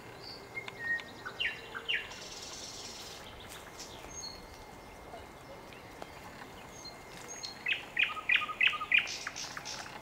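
Nightingale singing: a few short whistled phrases near the start, then a fast run of about eight loud repeated notes near the end, over a steady outdoor hiss.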